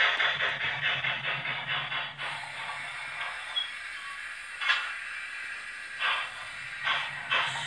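Steam sound from a Zimo MX648 sound decoder through a Sugarcube speaker in a Bachmann L&Y tank engine model. Regular exhaust chuffs stop about two seconds in, leaving a quiet steady steam hiss as the engine stands, then single chuffs come back at shortening intervals as it pulls away again.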